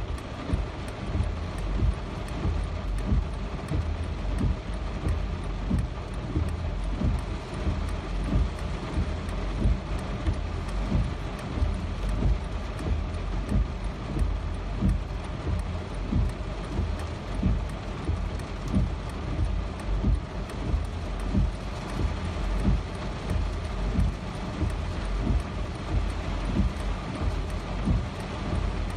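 Steady rain with a constant deep low rumble, and heavier drops hitting loudly about once or twice a second.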